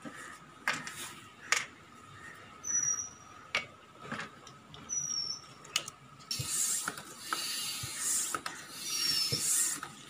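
Bicycle hand pump inflating a patched inner tube: some sharp clicks and knocks as the tube and pump are handled, then from about six seconds in, a hiss of air with each pump stroke, about once a second.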